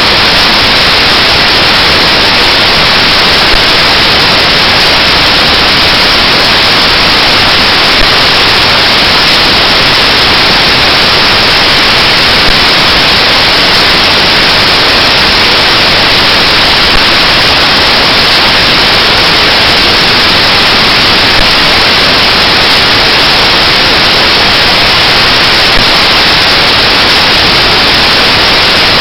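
Loud, even static hiss that does not change at all.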